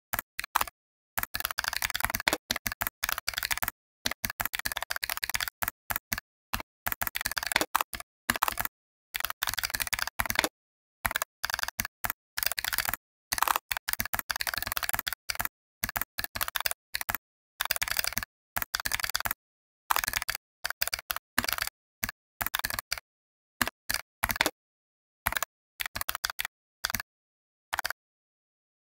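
Computer keyboard typing: rapid runs of key clicks in irregular bursts, broken by short gaps of dead silence.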